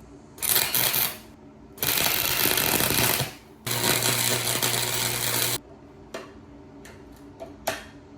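Electric arc welder crackling in three bursts of a second or two each, welding a nut onto a stripped bolt so it can be backed out, followed by a few light clicks and taps.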